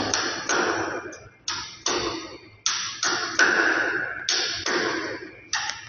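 An irregular series of sharp knocks, a dozen or so spaced a third of a second to a second apart, each ringing out briefly in an echoing concrete stairwell.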